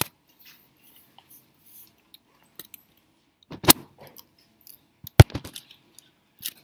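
A few isolated key presses on a laptop keyboard: four sharp clicks spread out, the loudest a little past the middle, with faint ticks between them.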